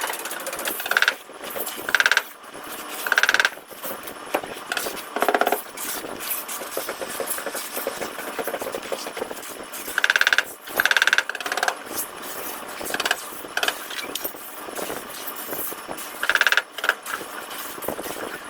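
Bodywork tools on a car panel during dent repair: a run of short, loud, ringing bursts at irregular intervals over a steady background noise.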